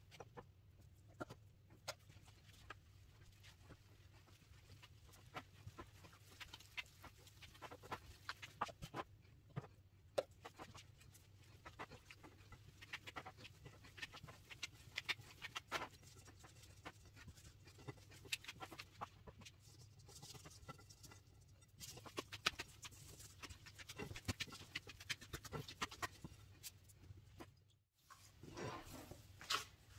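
A gloved hand kneads soft, oily dough in a bowl, making faint, irregular squishing and sticky slapping sounds, with a brief break near the end.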